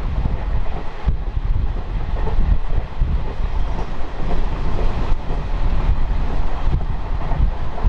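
DEMU (diesel multiple unit) passenger train running along the track, heard on board: a steady low rumble of wheels on rail, with a few clacks over rail joints.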